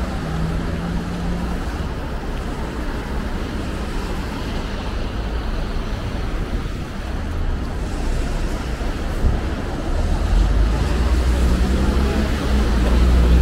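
Steady city street traffic noise heard from a moving bicycle, with a deep rumble growing louder for the last few seconds.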